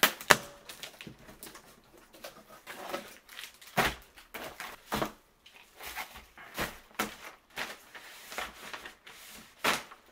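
A cardboard box being pulled open and its packing handled, with bubble wrap, plastic bags and padded envelopes rustling and crinkling. Irregular sharp knocks and crackles come through, the loudest just after the start, about four seconds in, and near the end.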